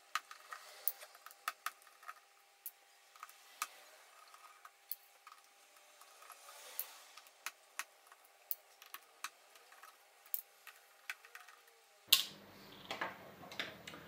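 Torx screwdriver taking small screws out of an iMac's aluminium display frame: faint, irregular clicks and ticks of the bit and screws against metal, several a second at times. Near the end there is a single louder knock, followed by handling noise.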